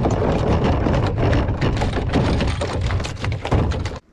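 A freshly shot carp thrashing in the wet bottom of a canoe: a dense, irregular run of slaps, knocks and splashing against the hull that cuts off suddenly near the end.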